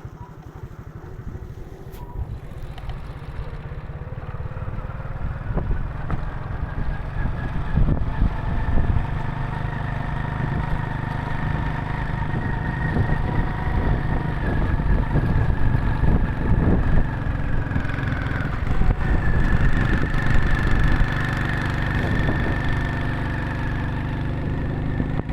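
A motor vehicle's engine running steadily with a low rumble and a few held whining tones. It grows louder over the first several seconds and then keeps running at that level.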